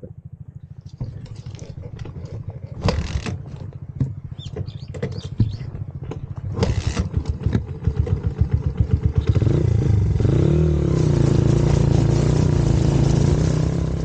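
Small 100cc single-cylinder motorcycle engine running again just after a stall, idling with a lumpy, uneven beat. About nine seconds in it revs up and holds a louder, steady run.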